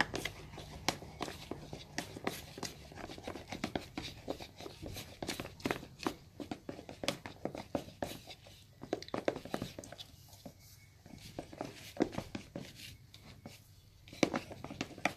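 A utensil stirring a foamy slime mixture of PVA glue and shaving foam in a plastic tub, with quick irregular clicks and scrapes against the tub's sides. The stirring goes quieter for moments about two thirds of the way in and again near the end.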